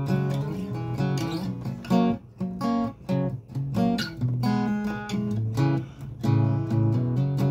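Cutaway acoustic-electric guitar being played, chords struck and left to ring, with a few brief dips between strokes.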